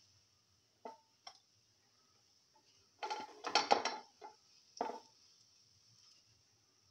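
Plastic spatula scraping and knocking against a coated frying pan as fried bitter gourd pieces are scooped out: a couple of brief scrapes about a second in, a louder flurry around three to four seconds in, and one more near five seconds.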